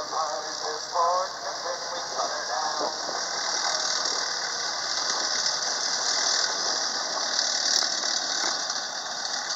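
Armoured vehicles, a half-track and a tank, driving slowly across a dirt field: engines running with track rattle and squeal, over a steady high hiss. A faint distant voice is heard in the first few seconds.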